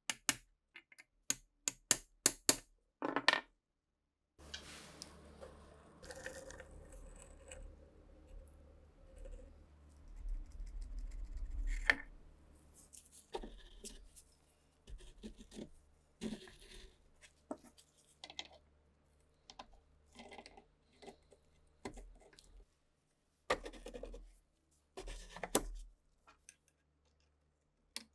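Hand tools working rusted steel parts of a STEN Mk2 submachine gun during disassembly. First come sharp metallic taps, then a stretch of scraping over a low steady hum, then scattered clicks and scrapes as pieces are pulled and picked loose.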